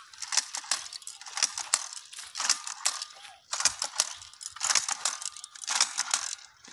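Hand-held jab planter sowing maize seed in stony soil: clusters of rattling clicks from its mechanism and the kernels, one group roughly every second as it is worked.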